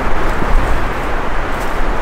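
Strong wind rushing through pine trees and buffeting the microphone: a loud, steady rushing noise with a gusting low rumble.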